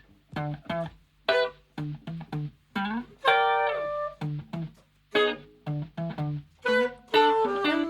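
Guitar playing short, clipped chord stabs in a syncopated rhythm, with one chord left ringing for about a second, roughly three seconds in.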